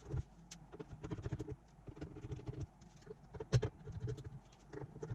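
Small clicks and scratchy rattles of a screwdriver working the screws that hold the cooler on a graphics card, with one sharper click about three and a half seconds in.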